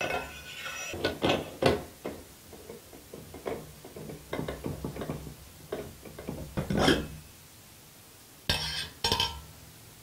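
Stainless steel gooseneck kettle and its lid dial thermometer being handled: a string of small metallic clicks, clinks and scrapes as the probe is fitted through the lid and the dial turned, then two short scraping rasps near the end as the metal lid comes off the kettle.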